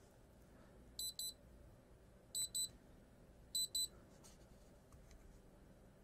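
Fingerprint padlock's electronic beeper sounding short, high-pitched double beeps, three pairs about every second and a half.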